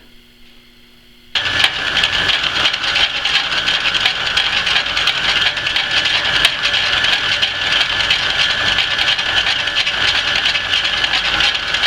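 Metalworking machine running steadily with a hissing whir, starting abruptly about a second in.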